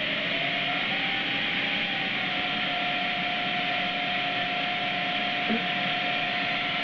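Fadal VMC 15XT vertical mill's spindle running: a whine that rises slightly over the first two seconds and then holds steady, with a second, higher whine joining, over a steady hiss.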